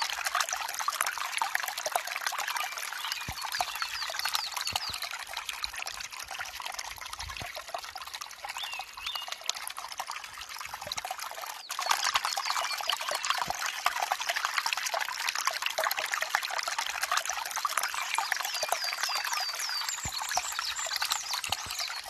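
Shallow stream trickling and burbling over stones among fallen leaves, a steady close-up splash of running water that gets a little louder about halfway through.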